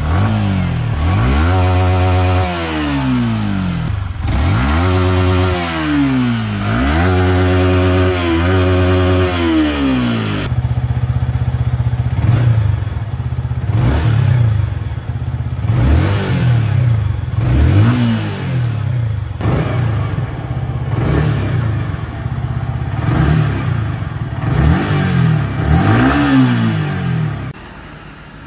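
Yamaha R15 V3's single-cylinder engine through its stock exhaust, revved up and down several times in long sweeps. After a cut it gets a run of short, quick throttle blips about once a second.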